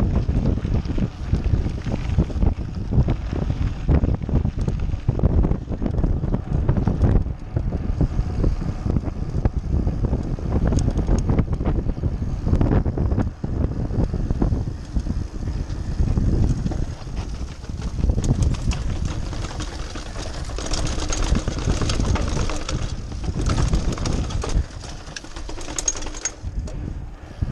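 Mountain bike riding fast over rough ground with a dense rumble and many small knocks and rattles, first on a gravel path and later on brick paving. Wind buffets the microphone, and a hiss grows louder in the second half.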